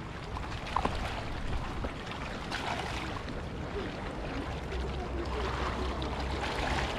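Steady wash of small river waves lapping against a rocky bank, with a low rumble underneath and a couple of faint clicks about a second in.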